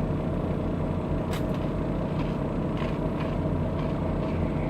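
Steady low hum of an idling vehicle engine, with a few faint short crunches, one about a second in and more around three and four seconds in, as mini pretzels are bitten and chewed.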